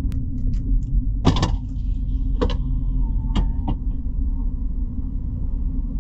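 Steady low rumble of a car rolling slowly, heard from inside the cabin, with a few sharp clicks: the loudest about a second in, then others around two and a half and three and a half seconds.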